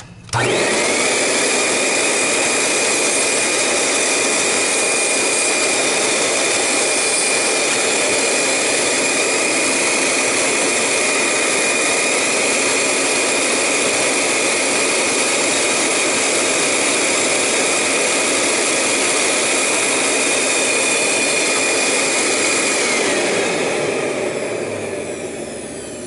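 Royal RY4000 upright vacuum motor switched on, rising within a second to a steady high whine and running at full speed with a cleaning stone held against its bare motor shaft to scrub off melted belt rubber. About 23 seconds in it is switched off and winds down, the whine falling.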